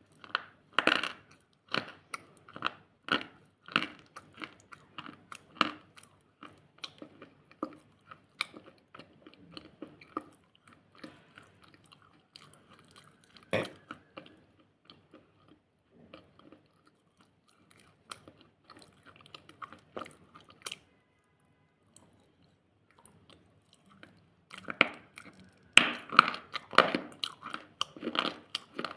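Close-up biting and chewing of something hard and brittle: a run of sharp crunches, thick at the start and again near the end, with a short pause a little after twenty seconds in.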